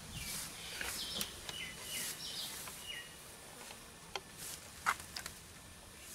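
Faint outdoor ambience with a few short, high chirps in the first three seconds, most likely a small bird calling. Scattered light clicks and rustles follow.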